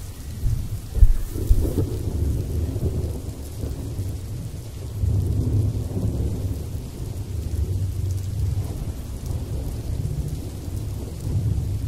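Thunderstorm: low rolling thunder throughout, with a sharp crack about a second in.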